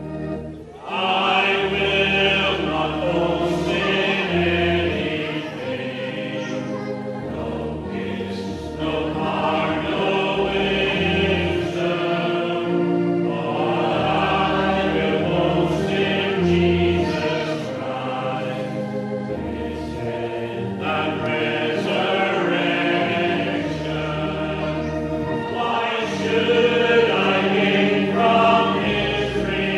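Church congregation singing a hymn together in sustained phrases, accompanied by a pipe or electronic organ with long bass notes.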